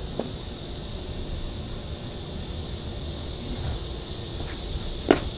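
Insects chirping: short runs of high-pitched pulses repeating about once a second over low outdoor background noise. Near the end there is a single sharp knock, the loudest sound.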